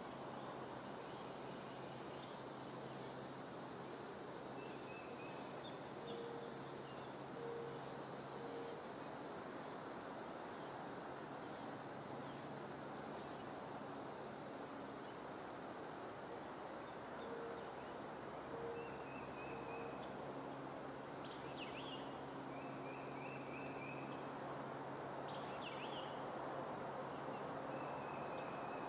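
Steady, high-pitched insect chorus with a fine pulsing trill, with a few short faint chirps now and then.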